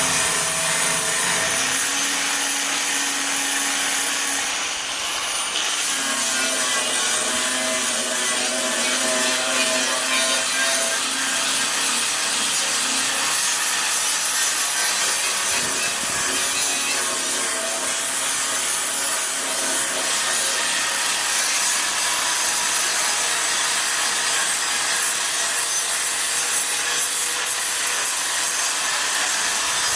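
Power grinder grinding down weld beads on a car's front bodywork steel: a continuous high grinding noise with a brief dip about four and a half seconds in.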